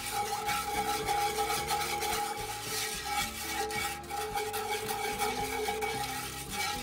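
Wire whisk scraping and stirring against the bottom of a cast iron Dutch oven in quick repeated strokes, whisking roux and broth into gravy, with soft background music underneath.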